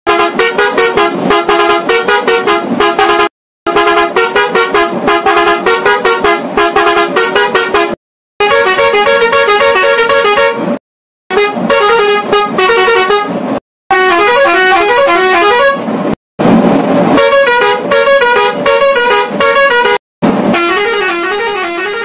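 Roots multi-trumpet musical air horn, six trumpets, playing a series of loud tunes made of rapidly stepping notes. Each tune stops abruptly and another begins.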